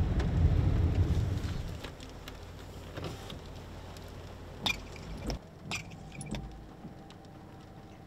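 Jeep cabin noise from driving, a low rumble that drops away about two seconds in as the vehicle comes to a stop, leaving a quiet steady hum. Near the middle come a few short sharp clicks and rattles of handling inside the cab.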